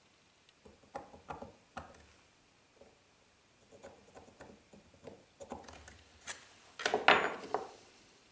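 Steel scriber scratching and ticking against a small metal part and block on a workbench: a scatter of short, faint clicks and scrapes. About seven seconds in comes a louder clatter as tools are set down and picked up.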